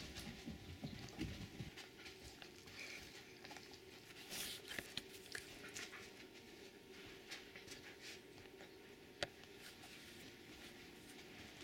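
Quiet pattering and scuffling of a Doberman and a gray wolf pup moving about and playing on carpet, with a few low thuds in the first second or so, then scattered light taps and one sharp click about three-quarters of the way through.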